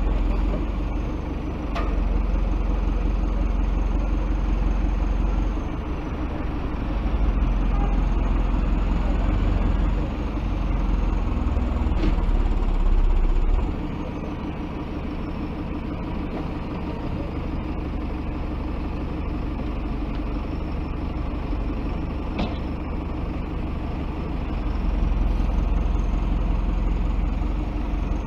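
Backhoe loader's diesel engine running as it digs and loads, swelling louder and easing back several times as the load comes on and off, with a faint high whine drifting up and down and a few sharp clicks.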